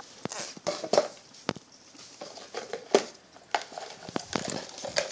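Irregular light clicks and taps, with a sharper knock about three seconds in: a crab's hard legs and shell tapping against an upturned clear plastic container and the tile floor it sits on.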